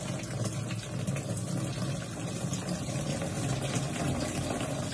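Water pouring steadily from a plastic jug into an air cooler's water tank through its side inlet, a continuous splashing rush.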